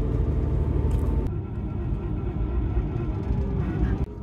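Steady low rumble of a diesel passenger train running, heard from inside the carriage; the higher hiss drops away abruptly about a second in.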